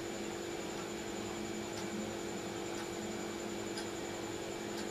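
Steady electrical hum and hiss of room tone, with a constant high whine and faint ticks about once a second.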